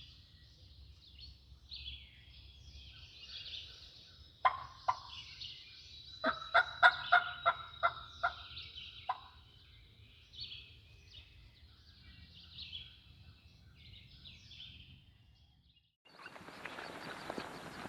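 Wild turkey calling close by, loud: two sharp notes, then a quick run of about ten evenly spaced notes, over a steady chorus of songbirds. Near the end a rustling noise starts suddenly.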